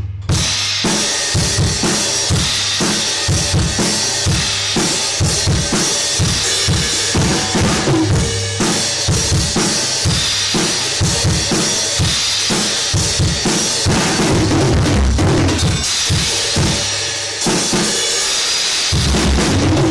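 Pearl drum kit played in a steady groove: repeated bass drum and snare hits under a continuous cymbal wash, with a short break in the beat near the end.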